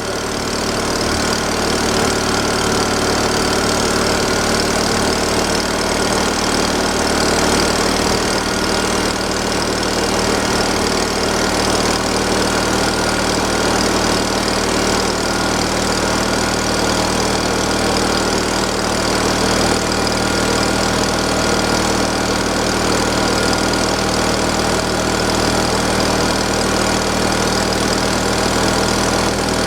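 Gasoline engine of a wood splitter running steadily at idle, warming up after a choked start.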